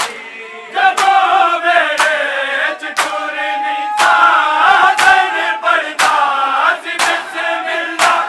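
Group of male mourners chanting a nauha (Shia lament) in unison, loud from about a second in, with chest-beating (matam) slapping in time about once a second.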